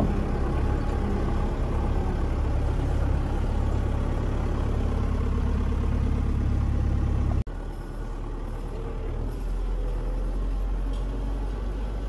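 Belarus tractor's diesel engine running steadily, heard from inside the cab. It cuts out abruptly about seven seconds in and comes back a little quieter.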